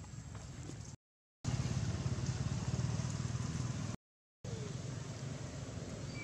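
Steady low outdoor rumble, twice cut off by a brief dead silence at splices in the footage. The loudest stretch between the two breaks has an even, engine-like low throb.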